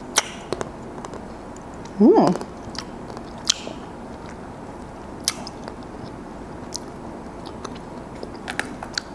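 Close mouth sounds of someone chewing a bite of a Magnum Pink Pomegranate ice cream bar, with a few sharp crackles from its pink chocolate coating. There is a brief hum about two seconds in.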